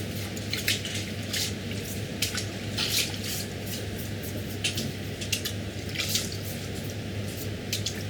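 Octopus being washed by hand in a tub of salted water: irregular wet squelches and splashes, over a steady low hum.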